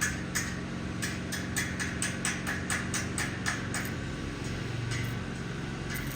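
Quick repeated hammer strikes on metal, about three a second, that stop about four seconds in, over a steady low engine hum.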